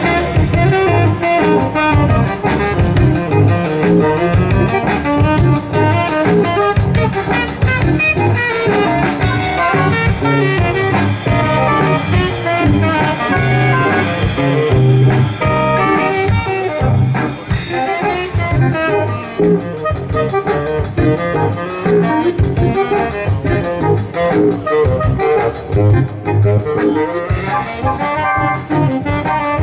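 A band playing live music with a steady beat.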